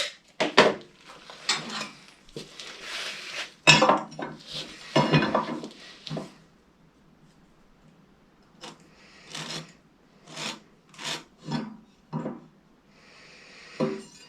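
Hand layout tools being handled on a timber workpiece: a metal square knocking and sliding on the wood, and a pencil rubbing on it, in irregular short clicks and scrapes with a pause in the middle.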